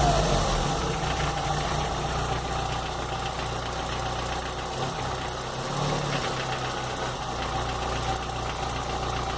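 VW Gol G4 car engine dropping back from a rev right at the start, then idling steadily, with a slight dip and recovery in speed about halfway through.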